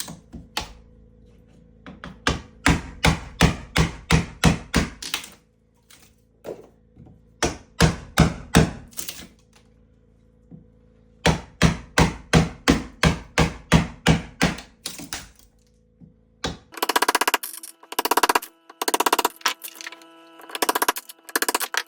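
A hammer striking in quick runs of about four blows a second, three runs with pauses between. Near the end come short spurts of a whirring tool.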